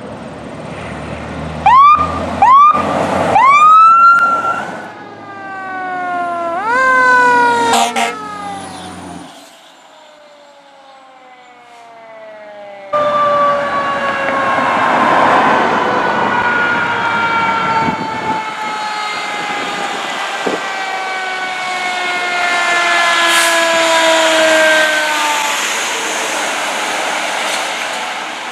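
Fire apparatus sirens: a few short rising whoops about two to four seconds in, then falling siren glides. After a break, a siren holds one long tone that falls slowly in pitch for about twelve seconds, as if winding down.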